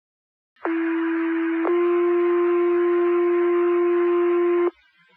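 Two-tone sequential pager alert over a fire dispatch radio channel. A tone of about one second is followed by a slightly higher tone held for about three seconds, with radio hiss underneath. It is the tone-out that sets off the volunteer firefighters' pagers for a new call.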